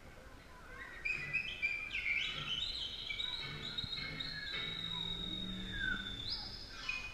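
Recorded music begins about a second in: high, bird-like chirping notes, rising runs and a long held high tone.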